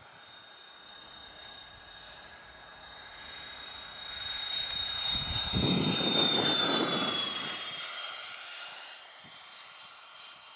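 Twin 80mm electric ducted fans of a Freewing A-10 model jet on a low fly-by: a high whine that swells to its loudest about six seconds in, drops in pitch as it passes, then fades away.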